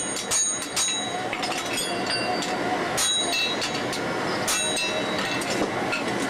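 Blacksmith's hand hammer striking red-hot iron on an anvil, each blow ringing metallically. A quick run of blows comes near the start, then slower, uneven strikes.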